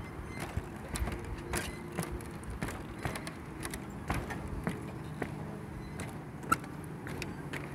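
Footsteps on the wooden plank deck of a suspension footbridge, about two steps a second, each step a short knock of the boards, with one sharper click about six and a half seconds in.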